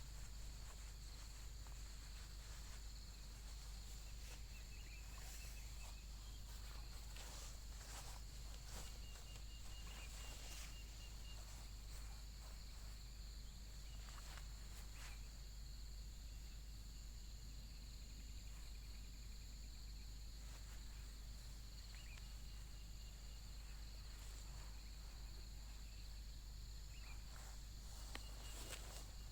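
Faint, steady chirring of insects, a continuous high-pitched drone, with a few scattered soft clicks and rustles over a low steady rumble.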